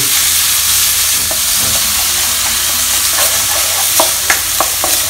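Minced pork sizzling in oil in a hot stone-coated wok as it fries from pink to cooked, with a steady hiss. A wooden spatula stirs and spreads the meat, giving a few short scrapes and taps, more of them in the second half.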